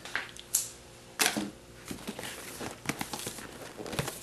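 A taped cardboard box being torn open: a few sharp rips and snaps of packing tape and flaps in the first second and a half, then quieter rustling and clicking as the packing inside is handled, with another sharp snap near the end.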